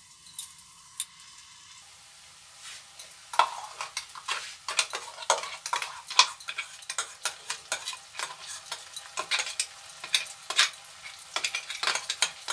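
Wooden spatula stirring sliced onions frying in oil in a nonstick kadai: a quick, irregular run of scrapes and clacks against the pan over a faint sizzle, starting a few seconds in.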